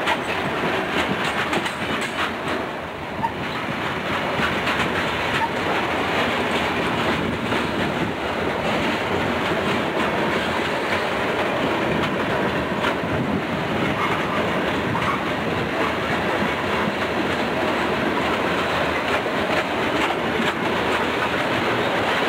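Freight cars rolling past close by: a steady rumble of steel wheels on the rails, with the clatter of wheels over the rail joints.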